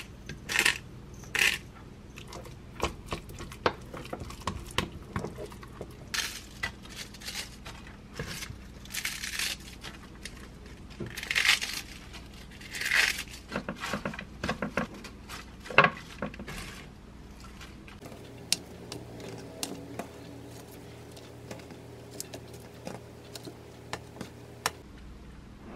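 Hand food preparation: a few clicks of a hand pepper grinder at the start, then crisp iceberg lettuce leaves being torn apart in crackling rips among light knocks and taps. The last several seconds are quieter, with soft taps as cherry tomatoes are set into a wooden bowl.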